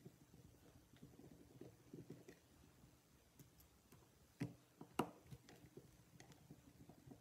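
Quiet handling of a lock cylinder: a screwdriver backing out the small Phillips screws from the face of a high-security mogul cylinder, with light clicks, the sharpest two about four and a half and five seconds in as a screw is set down.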